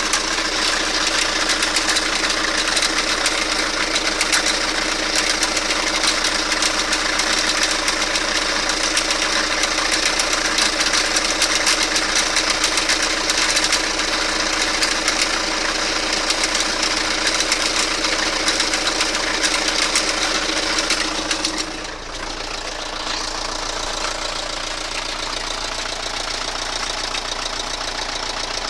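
Toyota Carina engine running with a rapid, steady metallic knock from the crankcase area. About three quarters of the way through, the sound drops in level and changes character, and the knocking carries on.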